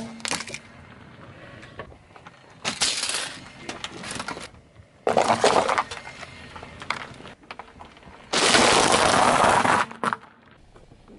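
Car tyre rolling over objects on asphalt and crushing them, in three bursts of cracking and crunching. The last and loudest, about two seconds long near the end, is a bag of dry penne pasta bursting and crunching under the wheel.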